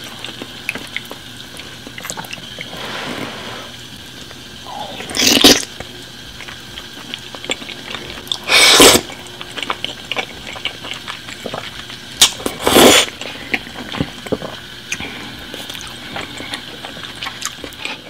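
Close-miked eating of spaghetti in red sauce: wet chewing and mouth clicks throughout, with three loud slurps of noodles about five, nine and thirteen seconds in.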